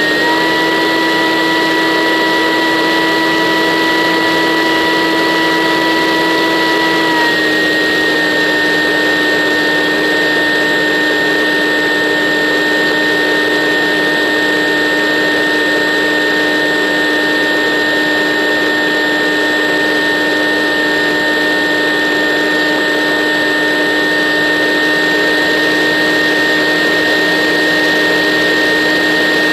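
RC model aircraft's motor and propeller running steadily in flight, recorded by the onboard camera, with a rush of airflow. The whine steps up slightly at the very start, drops a little about seven seconds in with a throttle change, then holds steady.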